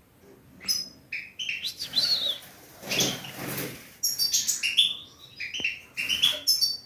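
Gouldian finches chirping in short clusters of high calls, mixed with fluttering and rustling.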